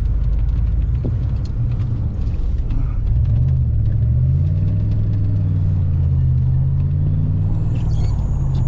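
Pickup truck engine running under load, heard from inside the cab. Its pitch rises from about three seconds in as it speeds up, then holds steady; a faint high whine joins near the end.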